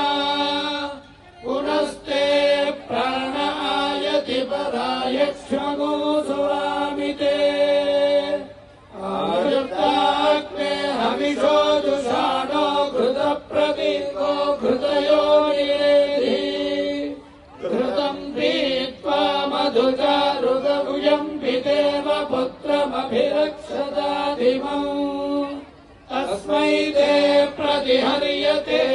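Priests chanting Vedic mantras on a steady, held pitch, in long phrases of about eight seconds separated by short pauses for breath.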